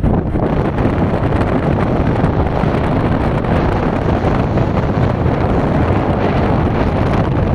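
Wind rushing over the microphone of a moving vehicle, a loud steady noise with the vehicle's running noise underneath.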